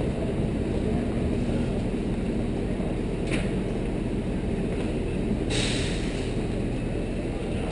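Steady low background rumble of an indoor public space, with a short burst of hiss about five and a half seconds in.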